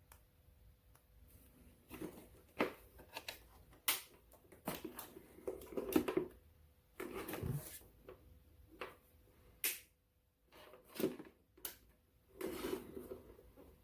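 Irregular handling noises: short knocks, clicks and rustling scrapes of objects being moved and set down, over a faint steady hum.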